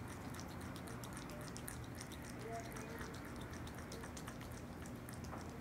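Opossum eating yogurt, licking and smacking at it: a rapid run of small mouth clicks, several a second, over a steady low hum.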